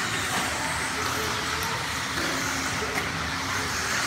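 Several electric 1/10-scale RC stock buggies racing on an indoor dirt track, a steady, even mix of motor and tyre noise.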